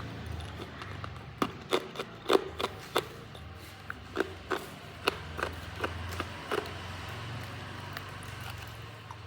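Hard ice being bitten and crunched in the mouth: a string of sharp, irregular cracks and crunches, loudest a couple of seconds in, then thinning out.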